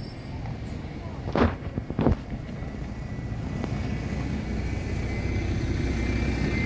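Diesel bus engine rumbling low and steadily, growing louder as a bus draws near. Two brief thumps come about a second and a half and two seconds in.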